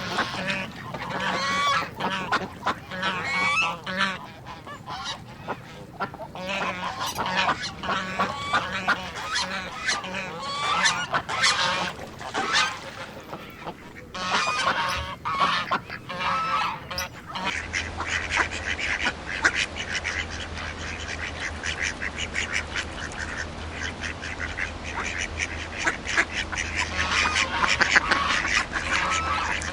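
A flock of geese and ducks honking and quacking, with repeated calls. About two-thirds of the way through it changes to a denser, faster chatter of many birds over a low steady hum.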